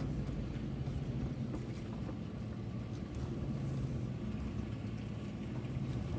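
Vehicle engine and tyre noise heard inside the cab while driving slowly: a steady low hum.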